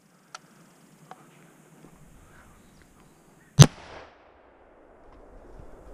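A single muzzleloader rifle shot about three and a half seconds in: one sharp, loud crack with a short echo trailing off.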